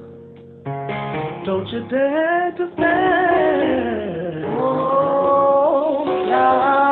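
Music: a song with a voice singing long, wavering held notes over accompaniment, after a brief quieter moment at the very start.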